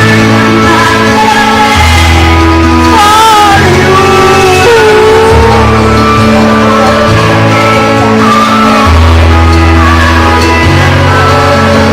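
Loud singing over a backing track of held chords, with a bass note that changes every second or two; the voice comes in with wavering held notes, clearest around three to five seconds in.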